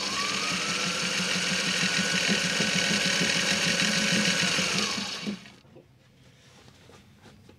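Sailrite Ultrafeed walking-foot sewing machine stitching a zigzag through canvas. Its motor whine rises as it speeds up at the start, then runs steadily with fast needle strokes and stops about five seconds in.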